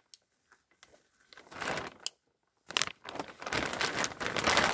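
Heavy black plastic drum liner crinkling as it is handled: a short bout about a second and a half in, then steady crinkling from about three seconds on.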